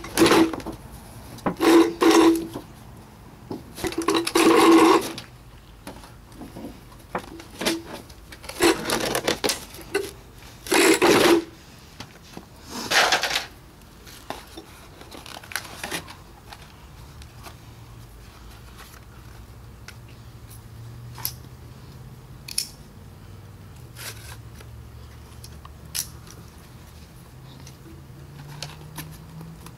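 Thin sheet-metal liner of a wooden 7.62 mm ammunition crate being bent and peeled back, in a run of loud crinkling, scraping bursts over about the first fourteen seconds. After that come quieter handling of the cardboard ammo boxes and a few light clicks.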